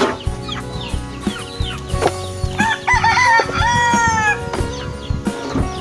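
A rooster crows once, about halfway through, one pitched call of a little under two seconds, among short knocks of a bowl and aluminium feed trays.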